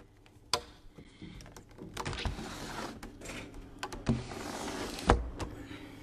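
Wooden-framed window being opened by hand: a few knocks and a scraping slide as it is worked open, with the loudest thump about five seconds in.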